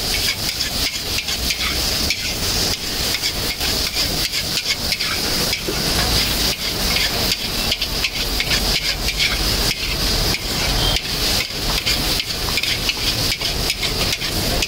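Chow mein frying in a large wok, a steady sizzle under a metal spatula that scrapes and knocks against the pan in quick, irregular strokes as the noodles are tossed.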